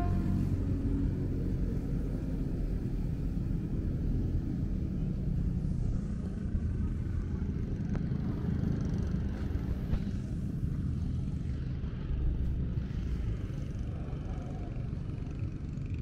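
Steady low rumble of outdoor street ambience, with the tail of background music dying away in the first second.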